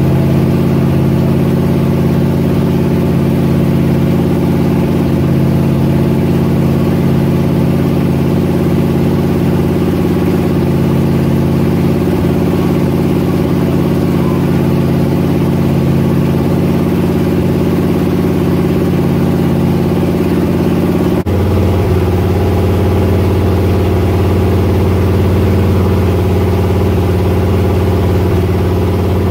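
BluePrint 355 small-block Chevy V8 with a Comp Cams XE274H flat-tappet cam running loud and steady during its camshaft break-in. It is loud because the exhaust headers are open, not yet connected to the side pipes. About three-quarters of the way through, the tone changes abruptly.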